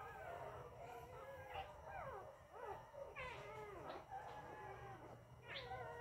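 Young puppies, about two weeks old, whining and whimpering without pause: several high, wavering cries overlap, rising and falling in pitch.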